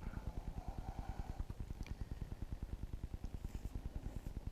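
A steady, low mechanical throbbing that repeats evenly at about seven pulses a second.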